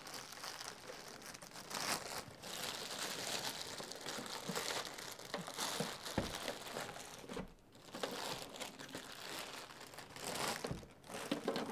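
Clear plastic bag crinkling and rustling as it is pulled off a countertop hydroponic garden unit, with two brief pauses, one past the middle and one near the end.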